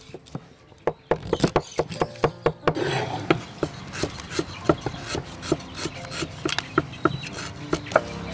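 Cleaver knocking through fish on a wooden cutting board, then from about three seconds in a knife scraping the fish skin with a rasping sound and regular knocks, about two a second.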